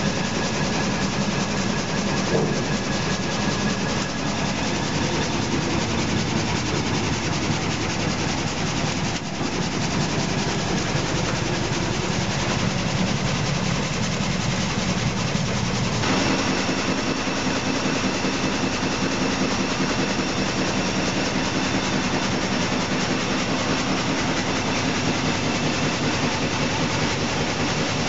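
Sawmill drive machinery running: big belt-driven pulleys and flywheels under the mill floor, giving a loud, steady, rhythmic mechanical clatter. About sixteen seconds in the sound changes abruptly and some new steady tones join it.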